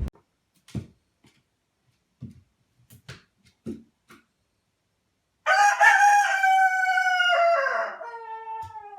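A rooster crowing once, one long call of about three and a half seconds that drops in pitch toward the end, after a few faint scattered taps.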